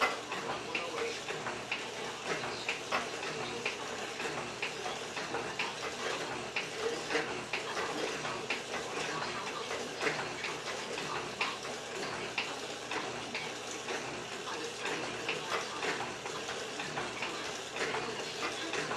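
Small benchtop FORD metal shaper running, a steady mechanical noise with clicks or knocks roughly twice a second, somewhat uneven.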